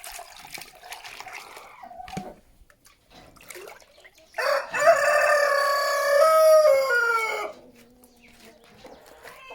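Rooster crowing once: one long call of about three seconds that drops in pitch at the end. Softer chicken clucking comes before it.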